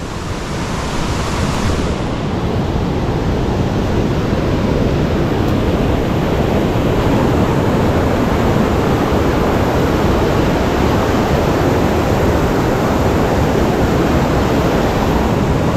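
Rushing water of river rapids pouring over rocks at the head of a waterfall, a steady, loud, even rush that grows over the first two seconds and then holds.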